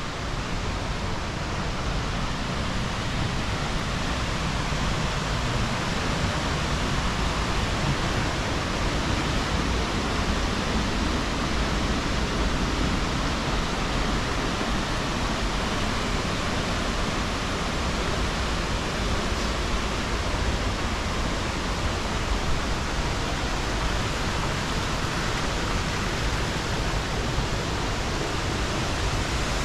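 Jōren Falls, a waterfall about 25 m high, rushing steadily as it drops into its pool: an even, unbroken roar of falling water.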